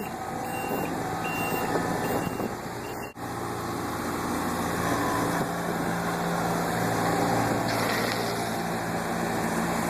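Engine of a heavy construction vehicle running steadily as it passes, with a few short high beeps in the first second or two.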